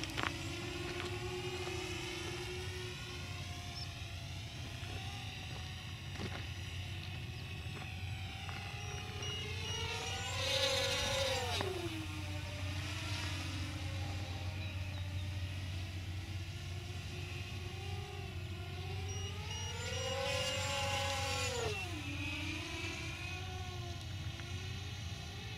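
DYS X230 racing quadcopter's brushless motors and propellers whining in flight, the pitch rising and falling with the throttle. Twice, about ten and twenty seconds in, it makes a fast pass: louder, the pitch climbing and then dropping sharply as it goes by.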